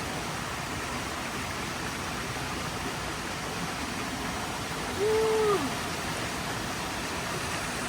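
Mountain stream water rushing steadily over rocks. About five seconds in, a short hoot-like call holds its pitch and then drops.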